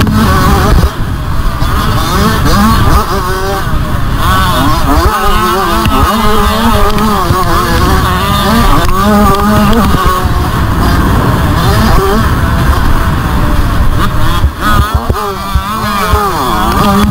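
Motocross bike engine heard from on the bike, revving hard and rising and falling in pitch as the rider works the throttle and gears round the dirt track, with brief throttle-offs about a second in and again near the end.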